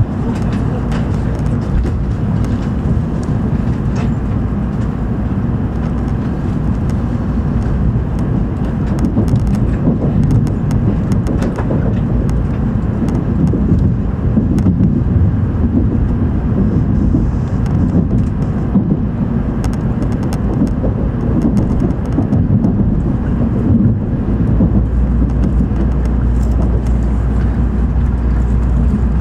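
Steady low rumble inside the cabin of a JR West N700 Series Shinkansen as it pulls away from the platform and gathers speed. There are faint light ticks, and a deeper steady hum sets in near the end.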